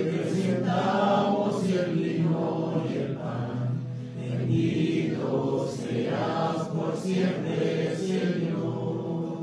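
Congregation singing an offertory hymn together, voices carrying a slow sung melody.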